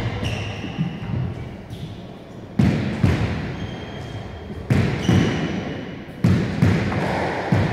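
A squash ball being struck by a racket and rebounding off the court walls: sharp, echoing smacks in pairs, about one pair every one and a half to two seconds.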